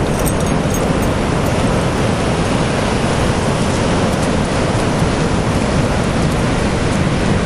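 Ocean surf breaking and washing over the sand: a steady, loud rush of noise with a deep rumble underneath.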